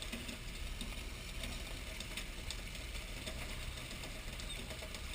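A fishing boat's engine running steadily with a low, even hum, with faint scattered ticks over it.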